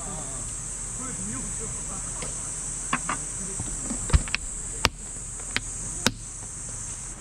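A steady, high-pitched summer insect chorus, with several sharp knocks or clicks in the second half.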